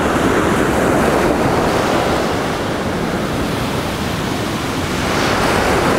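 Ocean surf breaking and washing up a steep sandy beach, a steady rush of water that swells slightly near the end.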